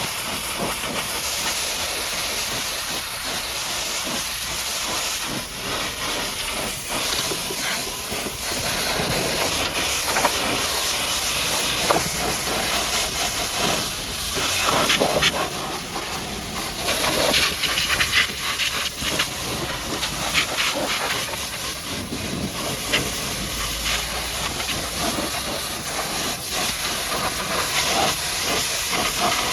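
High-pressure washer jet spraying water onto a muddy truck: a steady hissing spray that swells and fades as the jet sweeps across the surfaces.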